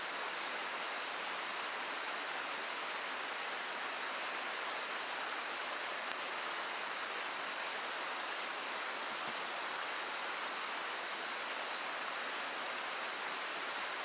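Steady rushing of a river: an even, unbroken hiss of flowing water.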